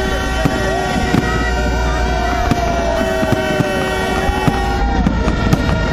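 Fireworks going off, a dense run of sharp pops and bangs, over the din of a crowd's voices with some held, horn-like tones that stop about five seconds in.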